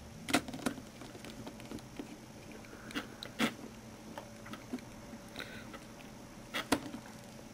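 Small sharp clicks and taps of a T6 Torx screwdriver working the keypad screws in a Nokia N73's plastic and metal frame. A few louder clicks come near the start, about three seconds in and near the end, with lighter ticks between, over a faint steady hum.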